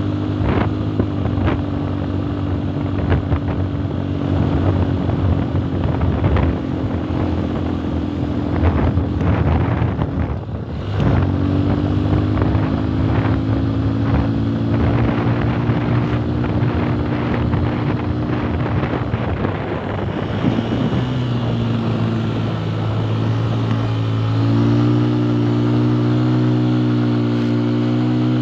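Motorcycle engine running under way, heard from the rider's seat with wind buffeting the microphone. The engine note dips briefly about ten seconds in, falls again around twenty seconds, then rises and holds higher near the end as the bike pulls uphill.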